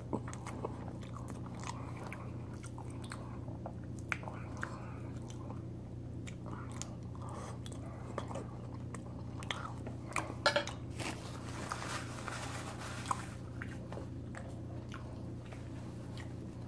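A person chewing and slurping spaghetti in alfredo sauce close to the microphone: wet mouth sounds and small clicks, with a louder cluster about ten seconds in. A steady low hum runs underneath.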